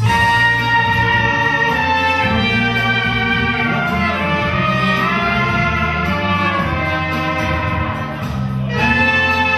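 Instrumental band music with brass to the fore, full and steady, with a short lull near the end before a new phrase comes in.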